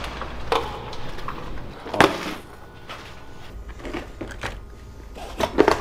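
Scattered knocks and clicks of gear being handled, a glass door and then lures shifting in a plastic tackle box, over a low steady hum. The sharpest knock comes about two seconds in, with a quick cluster of clicks near the end.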